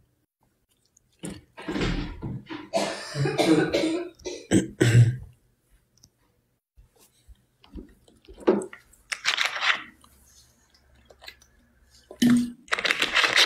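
A person coughing several times and clearing their throat in a cluster of short bursts, with a few more coughs later.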